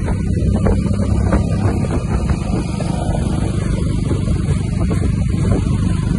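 A motor vehicle's engine running steadily at low speed, a continuous low rumble with some rushing noise over it, with a few faint irregular thuds.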